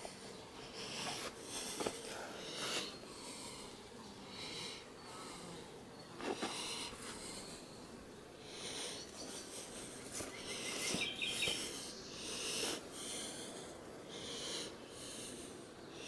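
A person breathing heavily close to the microphone, a string of hissing breaths roughly one a second, over a faint steady hum. A brief chirp sounds about eleven seconds in.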